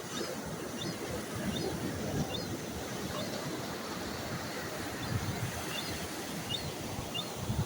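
Surf washing on a beach with wind, under a run of faint, short, high bird chirps that repeat every second or so.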